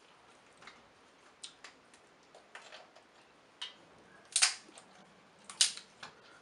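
Snow crab leg shells cracking and snapping as they are broken open with a handheld shell cracker and by hand: a string of sharp clicks, with two loud cracks in the second half.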